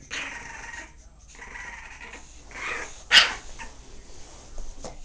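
Bulldog growling in rasping, breathy spells, with one short, sharp, loud outburst about three seconds in.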